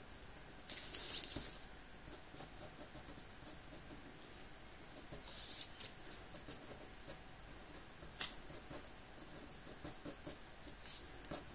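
Pen scratching on paper in short inking strokes: faint scratchy strokes about a second in and again about five seconds in, with scattered small ticks and a sharp tick about eight seconds in.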